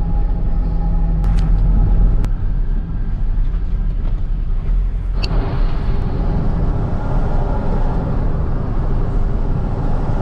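Car engine and tyre noise heard from inside the cabin while driving, a steady low rumble. Two light clicks come about one and two seconds in, and the road noise grows louder about five seconds in.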